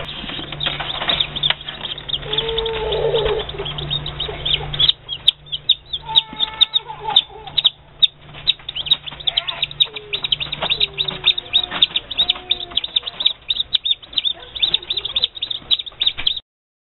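Newly hatched chicks peeping: a dense, rapid run of short high-pitched cheeps, with a low steady hum underneath for the first part.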